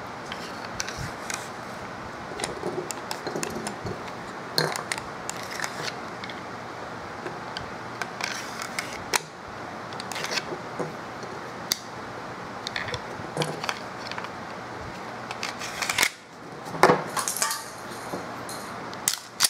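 Glock 23 slide being fitted back onto its polymer frame by hand: scattered clicks, light scrapes and clacks of the parts, with a louder run of clacks near the end.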